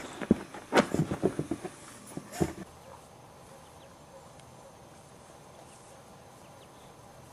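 Boxer puppies scuffling right at the microphone: a quick, irregular run of knocks and thumps from paws and bodies. It stops about two and a half seconds in, leaving only a faint outdoor background.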